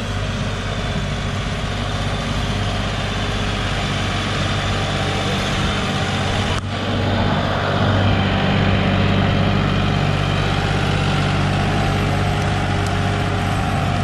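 John Deere 5065E tractor's diesel engine running steadily under load as it pulls a disc harrow through the soil. It gets louder after a break about seven seconds in.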